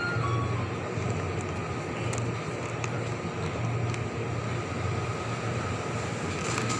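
Steady low hum with an even hiss from an open-front refrigerated display case, its fans and cooling running continuously.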